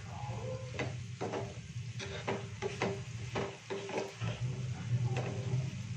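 A spatula stirring soya chunks in oil in a non-stick frying pan, giving irregular knocks and scrapes against the pan, over a steady low hum.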